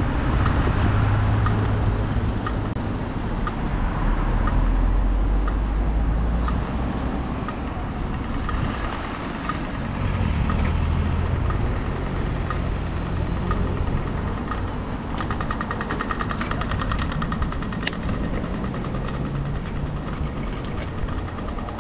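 Street noise heard from a moving bicycle: a steady rush of road noise with low rumbling from motor traffic that swells and fades. A light, regular ticking runs underneath and becomes a faster run of ticks about fifteen seconds in.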